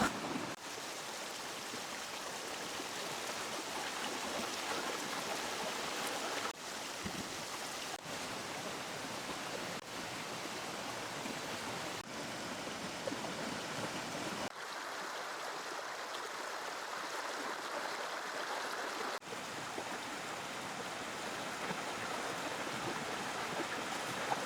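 Steady rush of flowing river water, broken by short dips every few seconds.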